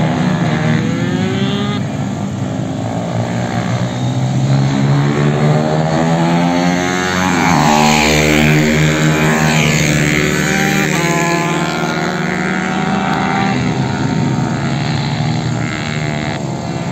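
Several small supermoto motorcycles riding hard, their engines revving up and down through corners and gear changes. Two bikes pass close about eight seconds in, the loudest moment.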